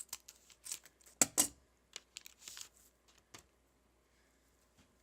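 Trading cards and their pack wrapper being handled: a run of crisp paper rustles and card clicks, with the two sharpest snaps just over a second in, then only faint handling.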